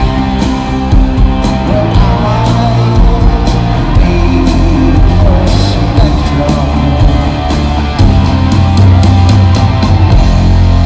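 Jam band playing live rock over a big PA: electric guitars, keyboards, bass and a drum kit with steady cymbal strokes, loud throughout.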